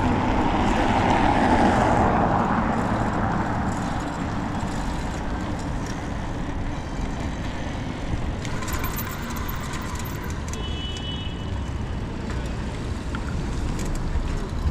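Road traffic noise from passing cars. One vehicle passes louder in the first few seconds, and a steady traffic rumble follows.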